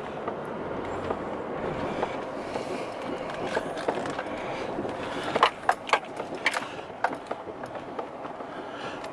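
Truck tyres rolling slowly over sharp rocks and gravel: a steady crunching rumble with sharp cracks and pops of stones under the tyres, coming thicker from about halfway through.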